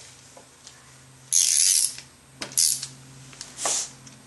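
Hand ratchet with a swivel and 10 mm socket snugging intake manifold bolts: three bursts of rapid pawl clicking, the first and longest about a second in.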